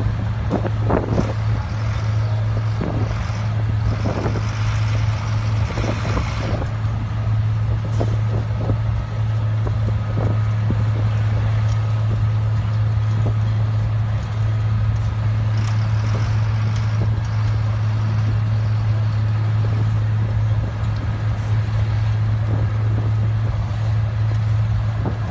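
XCMG XM200KII pavement milling machine running, a steady low engine drone that holds an even pitch throughout, with a spell of hiss about four to six seconds in.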